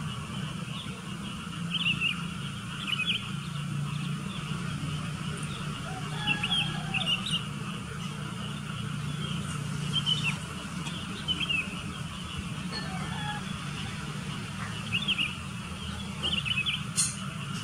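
Sooty-headed bulbuls giving short chirping calls in quick little clusters every few seconds, over a steady low hum. A single sharp click sounds near the end.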